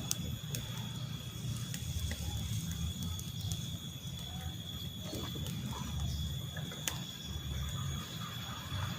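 Quiet outdoor ambience: a steady low rumble with a thin steady high tone, and a few faint scattered clicks.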